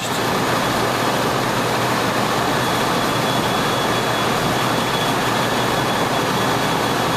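Steady, even rushing noise of a restaurant kitchen's ventilation over the range, with a faint high whine held through most of it.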